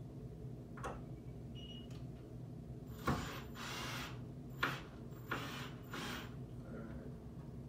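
Wooden stand boards being handled and fitted during assembly: a couple of sharp knocks and several short scraping rasps, each about half a second long, over a low steady hum.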